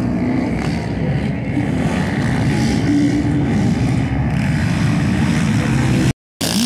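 Dirt-bike engines running on a motocross track, a steady loud drone whose pitch shifts as the bikes rev and ease off. The sound cuts out briefly near the end.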